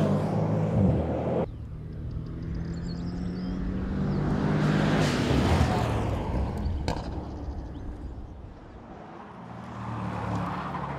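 Mercedes-AMG GT 63 S E Performance's twin-turbo V8 exhaust as the car is driven on a track, its note rising and falling and loudest as it passes about five seconds in. The sound cuts off abruptly about a second and a half in, and there is one sharp click near seven seconds.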